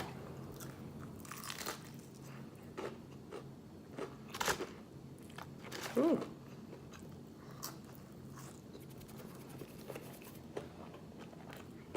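A person biting into and chewing crispy fried chicken close to the microphone, with scattered crunches of the breading.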